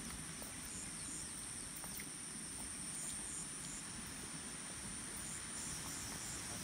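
Insects calling in the vegetation: a steady high-pitched buzz, with another insect chirping in short repeated pulses in a few brief runs.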